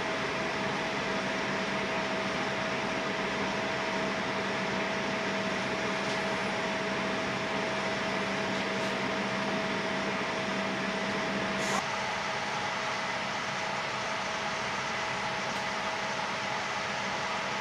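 Steady hum of an E6 series Shinkansen car's air conditioning and onboard equipment inside the passenger cabin while the train stands still, with a low and a higher steady tone. About 12 seconds in there is a short click and the low tone cuts out.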